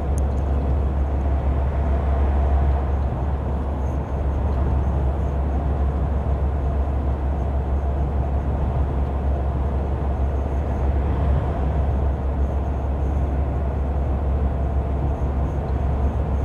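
Steady engine and road noise inside a vehicle's cabin cruising at motorway speed, a constant low rumble with tyre hiss and no change in pace.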